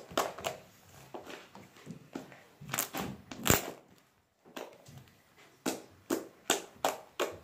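Homemade white slime being kneaded and pressed by hand, giving irregular sharp clicks and pops, the loudest about three and a half seconds in.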